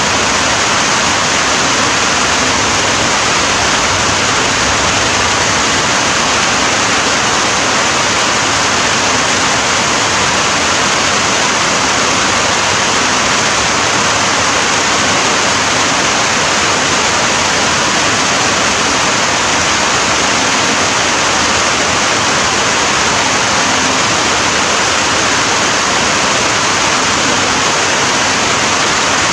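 Steady rain falling, a dense, even hiss that never lets up.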